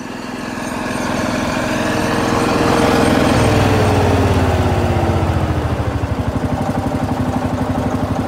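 Single-cylinder diesel engine of a 1960 John Deere Lanz D2816 tractor running at full throttle, then slowing in pitch about halfway through. It settles into a slower, even beat of single firing strokes, the setting for half throttle.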